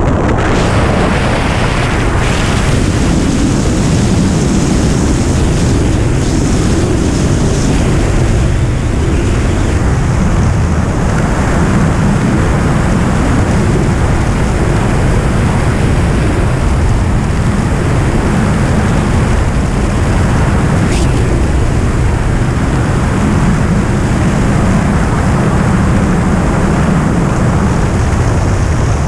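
Loud, steady rush of wind buffeting a body-mounted camera's microphone during wingsuit flight. The noise is even and unbroken, heaviest in the low end.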